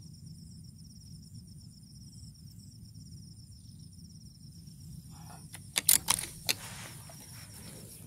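Steady high insect buzzing from the surrounding rice fields, with a quick run of four sharp clicks close by about six seconds in.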